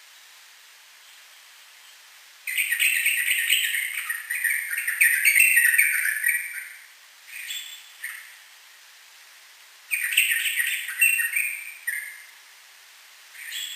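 Sooty-headed bulbul singing fast, vigorous song in two bursts of rapid phrases, one about four seconds long starting after a couple of seconds of faint hiss, a second of about two seconds later on, with short single calls between and near the end.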